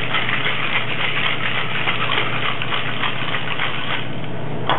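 Ice rattling steadily inside a metal cocktail shaker as a margarita is shaken hard. A single sharp knock comes near the end.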